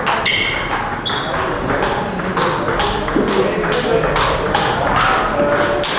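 Table tennis rally: the ball clicking off the paddles and the table in a quick, even rhythm, two or three hits a second.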